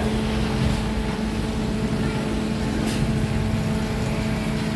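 A steady hum holding one pitch over a dense low rumbling noise, unchanged in level throughout.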